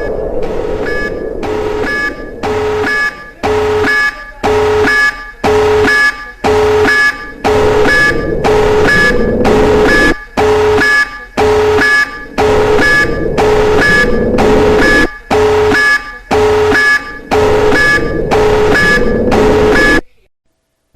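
Electronic alarm beeping in a fast, even pattern of about two beeps a second, then cutting off suddenly near the end.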